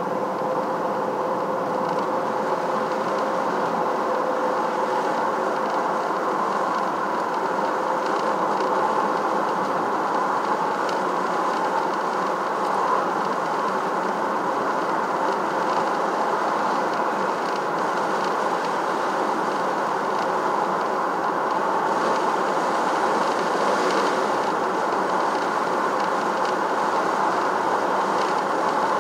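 Steady rumble of road and engine noise inside a moving vehicle.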